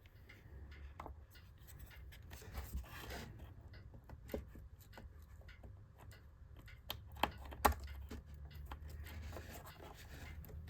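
Faint scraping and rubbing with scattered light clicks as hands work at an iMac's partly lifted bonded screen and the cables behind it, with a few sharper clicks about seven seconds in. A steady low hum lies underneath.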